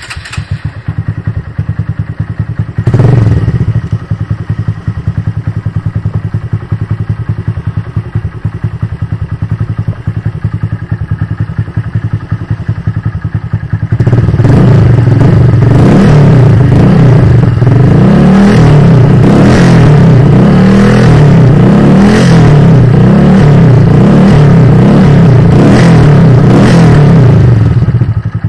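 Motorcycle engine running through an Akrapovič-branded carbon slip-on muffler with a silencer insert fitted to cut its noise. It idles with one short rev blip about three seconds in, then from about halfway is held at higher revs and blipped about once a second.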